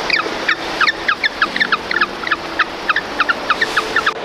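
African penguin colony calling: a quick series of short chirps, each falling in pitch, about four a second.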